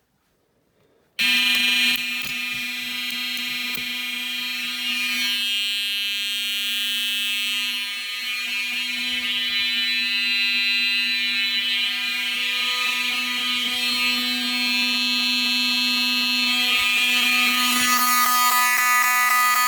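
Fire alarm system notification horns come on suddenly about a second in and sound continuously with a loud, steady, unbroken buzzing tone. The system has been set into alarm by pulling a 270-SPO manual pull station.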